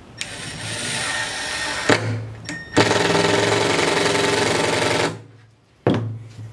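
Cordless impact driver driving a screw into plywood: a run of about two seconds, a short pause, then a louder run of about two seconds of rapid hammering as the screw seats, and one brief final burst near the end.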